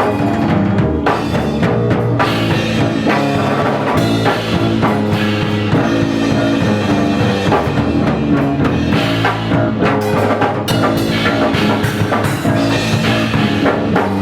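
Punk rock music: electric bass guitar and drum kit playing a driving instrumental passage, with steady low bass notes under busy drum hits.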